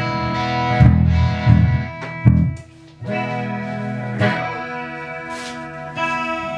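Amplified electric guitars playing sustained chords and notes over strong low bass notes. The playing stops briefly about two and a half seconds in, then starts again.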